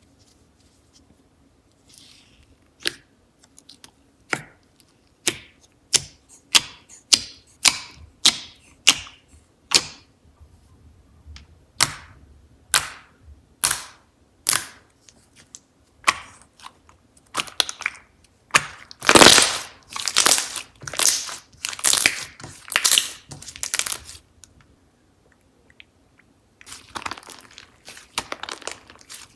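Slime being handled and poked, making sharp popping clicks about one or two a second, then a denser run of crackling pops about 17 seconds in.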